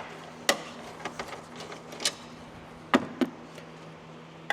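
A few sharp, scattered metallic clicks and taps of a hand ratchet and nuts as the front strut's top mount nuts are undone, over a steady low hum.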